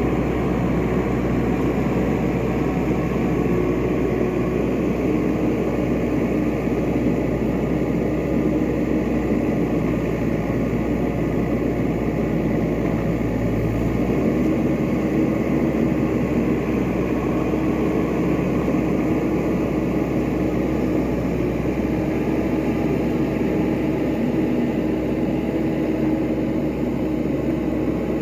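New Holland skid steer's diesel engine running steadily under work, its note shifting about halfway through. The machine is stuck in a slow, reduced-speed mode from a fault code, which the owner calls "slow-mo".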